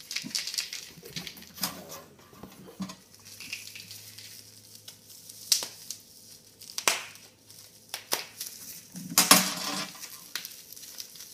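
Supplies being handled during an unboxing: scattered light clicks and clacks of hard plastic items knocking together, with a louder rustle or scrape about nine seconds in.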